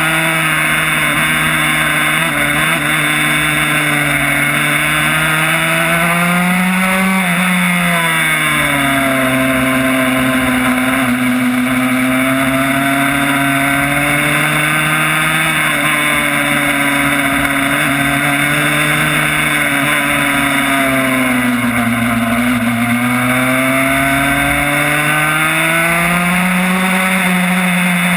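Yamaha YZ85 two-stroke single in a Honda RS125 road racer running hard on track. Its pitch climbs and falls as the rider accelerates out of corners and rolls off into them, dropping most deeply about eight and twenty-two seconds in.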